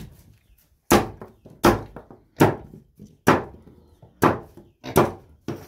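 Machete chopping fruit into pieces, the blade hitting the hard floor beneath with each stroke: seven sharp chops, a little under one a second.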